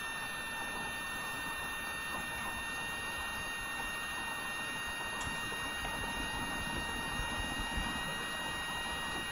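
Room tone: a steady hiss with several faint, steady high-pitched tones running through it.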